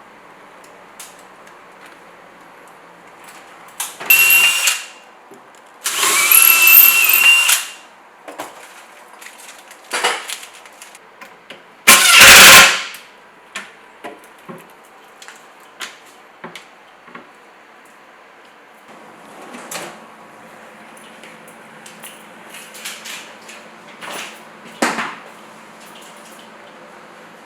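Short bursts of a whining power tool, each a second or two long, with a louder burst about twelve seconds in and scattered knocks and taps in between.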